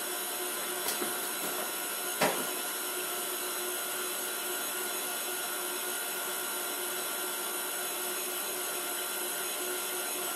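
KitchenAid Artisan stand mixer running steadily on speed 4 with the wire whisk, beating a liquid mix in its steel bowl. A light click about a second in and a sharper knock about two seconds in.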